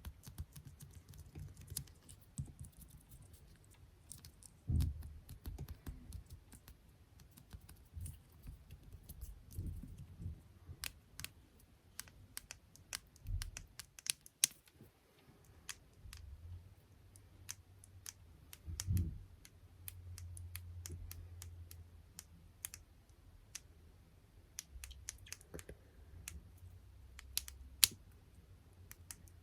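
Close-miked ASMR tapping on small objects: light, irregular fingertip taps and clicks, like typing, with a couple of soft, dull thumps in between.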